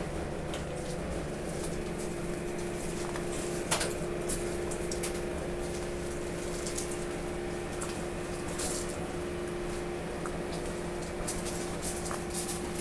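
A steady mechanical hum holding a few fixed tones, with scattered light clicks and ticks over it; one sharper click comes about four seconds in.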